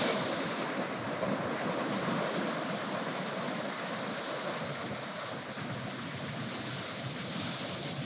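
Ocean surf breaking and washing up a sandy beach, a steady rush of waves that eases slightly, with some wind buffeting the microphone.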